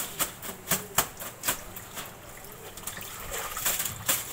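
Water splashing and sloshing as things are washed by hand in a basin under a tap, with irregular sharp splashes several times a second.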